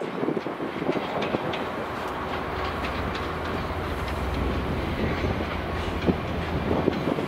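Container freight train's flat wagons rolling past, a steady low rumble with the wheels clattering irregularly over the rail joints.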